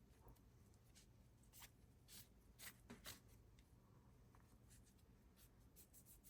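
Faint scratchy rubbing with a few light clicks, loudest around two to three seconds in: a towel wiping polish over a small pinball plastic part.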